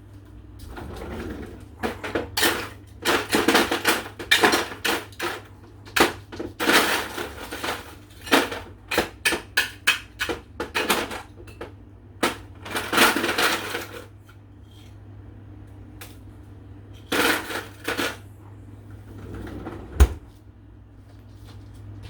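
Ice cubes clattering and rattling in a freezer ice bin as they are scooped out, in rapid runs of clinks, then a short burst later on. A single sharp knock comes near the end, over a steady low hum.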